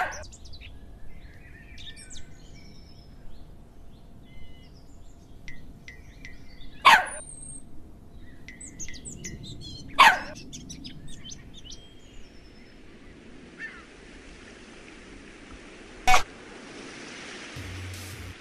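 Birds chirping and calling in a light outdoor ambience, broken three times by a short, loud, sharp sound. A soft steady hiss comes up over the last few seconds.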